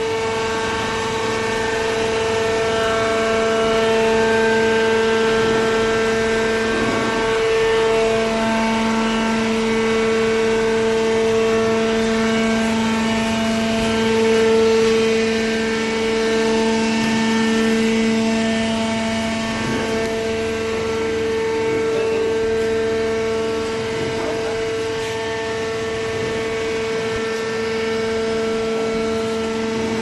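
Hydraulic power unit of a horizontal cardboard baler running: a steady whine of several held tones, with a lower hum growing stronger about eight seconds in.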